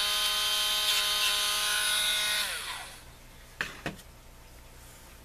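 Small handheld rotary tool running at a steady high pitch while sanding burrs off plastic model parts, then switched off about two and a half seconds in and winding down. Two light clicks follow a second later.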